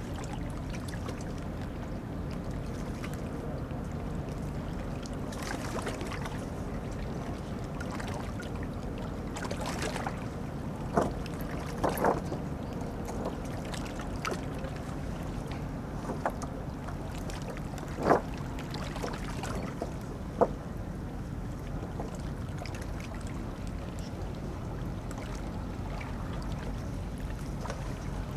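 Harbour ambience: a steady low rumble of boat engines over the water, with a few short sharp knocks around the middle.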